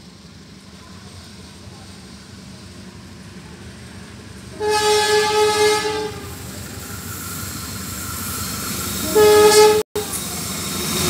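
Diesel locomotive horn sounding twice as the train approaches: a blast of about a second and a half, then a shorter one about four seconds later. Under both is the steadily growing rumble of the oncoming locomotive.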